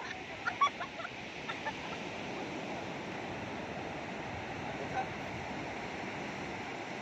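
Surf washing onto the beach as a steady hiss of breaking waves, with a few brief voices in the first second or two.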